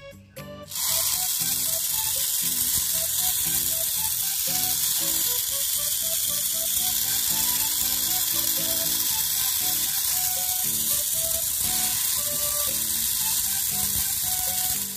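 A Jinli mini 4WD car's electric motor and gearbox running, held in the hand with the wheels spinning free: a steady, loud buzz that starts about a second in and stops near the end. The gearbox sounds rather rough, as is usual for a cheap kit.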